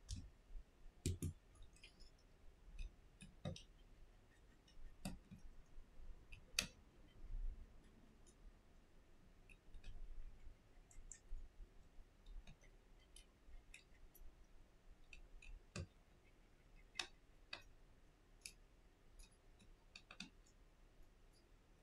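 Faint, scattered small clicks and light taps of hands handling an iPhone 7 display assembly and its small metal parts. They come at irregular intervals over a near-silent background.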